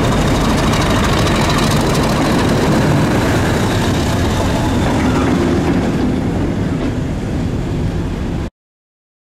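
British Rail Class 50 diesel locomotive with its English Electric 16-cylinder engine running as it passes close by. The sound eases off after about six seconds, then cuts off suddenly about eight and a half seconds in.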